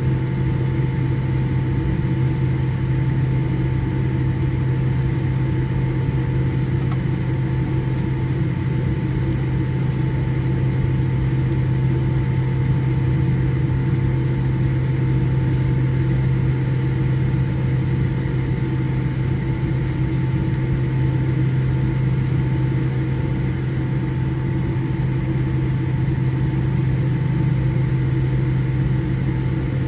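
Steady drone inside the cabin of a Boeing 787-8 idling on the ground before takeoff: engines and cabin air together, a low hum with a few faint higher tones held over an even rushing noise.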